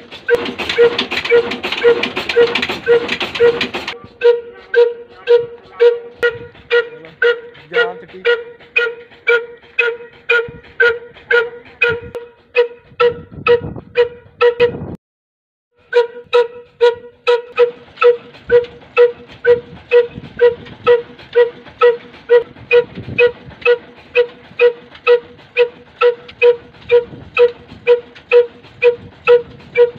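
Slow-running 'kala' diesel engine of about 18–20 hp at 300 rpm, firing in even exhaust beats about twice a second, each beat a ringing pop. For the first four seconds a grain mill running off it adds a loud rushing hiss. The sound drops out for about a second near the middle.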